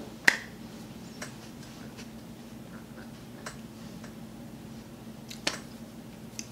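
A few short sharp clicks and soft rustles from a person moving and touching her clothes and hair, the sharpest about a quarter second in, over a low steady hum.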